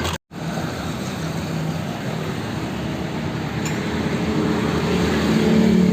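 Honda Vario scooter's single-cylinder engine running with a clattering 'klotok' knock, getting louder near the end. The mechanic takes the knock for a worn automatic cam chain tensioner rather than connecting rod or piston damage.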